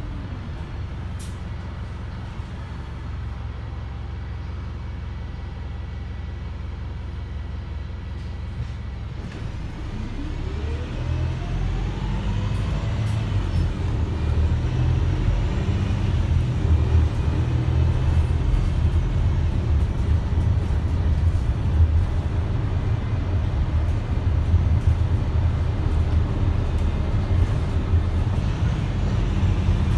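Cabin sound of a Wright StreetLite single-deck bus with a Mercedes-Benz OM934 four-cylinder diesel, running at low, steady revs. About ten seconds in the bus pulls away: a rising whine comes in and the engine grows louder as it accelerates, then holds at the higher level.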